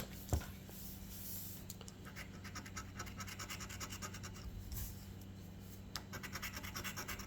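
Scratch-off lottery ticket being scratched: the latex coating scraped off with quick back-and-forth strokes in several bursts, with a single knock just after the start.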